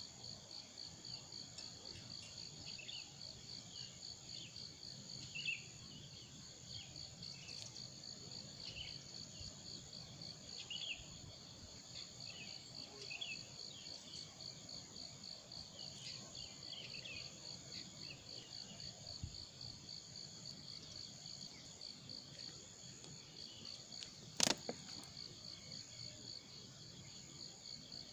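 Insects trilling in a steady, high, pulsing chorus, with faint scattered chirps below it. A single sharp click near the end is the loudest sound.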